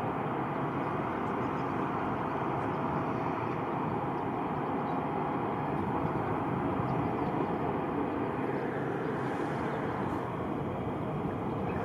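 Steady aircraft engine noise, swelling a little in the middle and easing slightly near the end.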